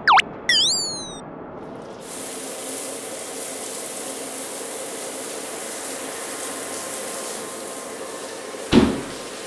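Cartoon sound effects: a quick falling whistle and a zigzagging warble at the start, then a steady spray hiss as an overhead nozzle sprays paint over the car. A single sharp hit comes near the end.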